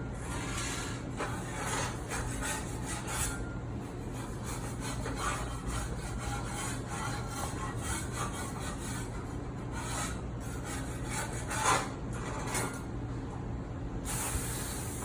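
Kitchen items being washed in a metal-lined sink: scraping and rubbing with many small clatters, and one louder clank about two-thirds of the way through. Near the end a spray of water starts hissing.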